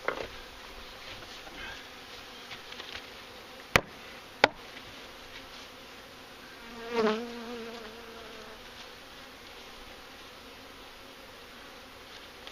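Honeybees buzzing steadily around the open hives, with two sharp clicks about four seconds in and one bee buzzing loudly past close by about seven seconds in, its pitch bending as it passes.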